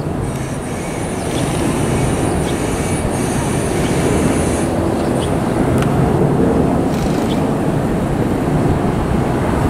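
Vintage IRT Lo-V subway train rolling over elevated steel track: a steady rumble of wheels on rails that grows a little louder over the first couple of seconds as it comes around the curve. A thin high whine rides above it and stops about halfway through.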